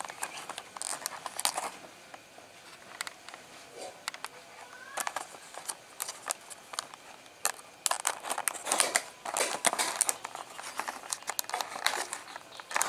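Clear plastic blister packaging crinkling and crackling as hands peel and pry it away from its cardboard backing card, in irregular clicks and crackles.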